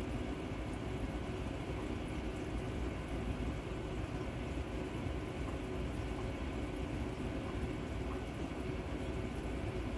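Aquarium water circulation running: a steady rush of moving water with a faint hum.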